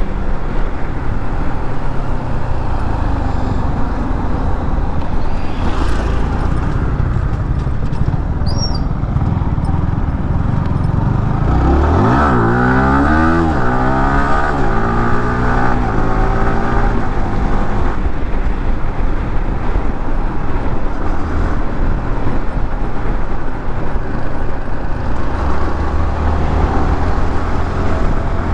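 Yamaha R15M's single-cylinder engine running under a steady low rush of wind and road noise while riding. About twelve seconds in it accelerates hard, its pitch climbing and dropping several times as it shifts up through the gears, then it settles back to a steady cruise.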